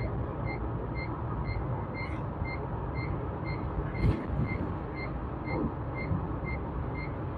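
A vehicle's electronic warning beeper sounding short, high beeps about twice a second over the low rumble of a moving vehicle. The beeping stops shortly before the end, and there is a single sharp click about four seconds in.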